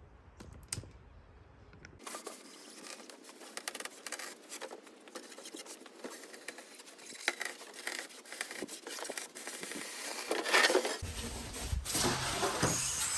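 Insulation board being pushed past a utility-knife blade clamped in a homemade cutting jig: a long, scratchy, crackling cut that starts about two seconds in and grows louder near the end.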